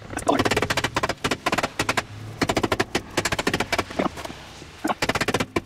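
A cordless power tool working on the truck's front hub, rattling out rapid mechanical clicks, about a dozen a second, in several bursts that start and stop.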